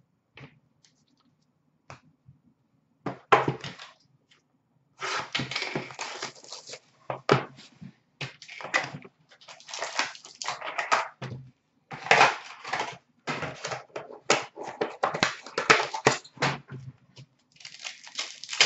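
Trading-card pack wrappers crinkling and tearing as the packs are opened and the cards handled, in irregular rustling bursts. These begin about three seconds in and run almost without a break from about five seconds in.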